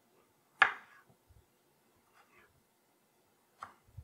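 Kitchen knife chopping pickles on a wooden cutting board: one sharp knock about half a second in, then a few lighter taps near the end.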